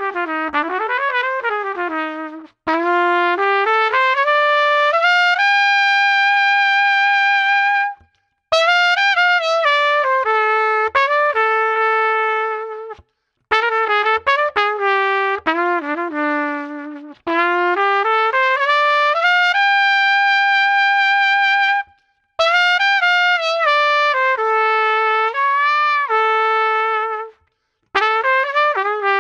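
LOTUS Universal Max trumpet played solo, trying different tuning slides (brass, then bronze) and valve cap weights in turn: short melodic phrases, several ending in a long held note, with brief breaths between them.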